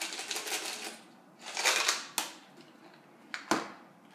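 Small pieces of gum rattling out of a plastic tub into a bowl of snacks in two or three bursts, clattering against the bowl. A single sharp knock comes near the end.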